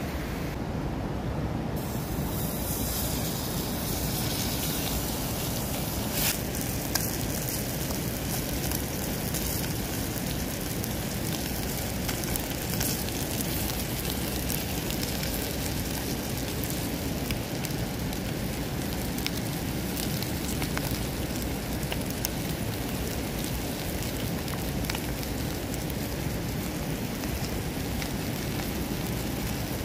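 Small wood fire burning under a cooking pot: a steady hiss with scattered crackling pops.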